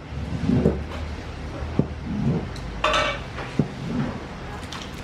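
Long-handled paddle stirring thick rice porridge in a large aluminium cooking pot: a stirring stroke about every second and a half, with sharp knocks of the paddle against the pot wall and a brief clatter near the middle.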